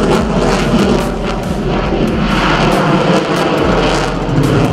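Fighter jet engine noise, a loud, steady jet rush as the aircraft flies past.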